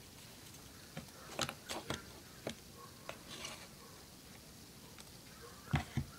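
Scattered light clicks and taps of a plastic glue bottle, a clear plastic cup and a wooden craft stick being handled on a tabletop, with two louder knocks near the end.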